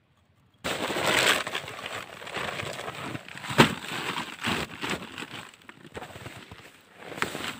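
Gear being handled and packed into a plastic sled on snow: irregular rustling, clattering and knocks, the sharpest knock about three and a half seconds in.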